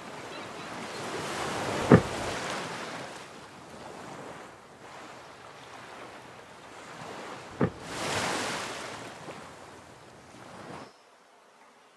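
Sea and wind noise on the microphone, swelling and fading, with two sharp thumps: the louder one about two seconds in, the other just before eight seconds. The sound cuts out about a second before the end.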